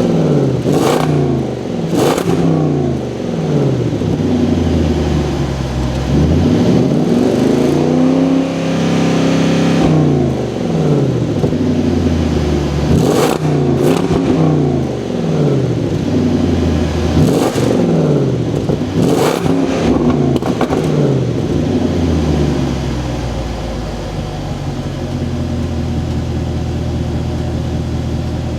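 Land Rover Defender 110's supercharged 5.0-litre V8 accelerating through several upshifts, the revs climbing and then dropping at each gear change, with a few sharp cracks along the way. Near the end it settles to a steadier, quieter run.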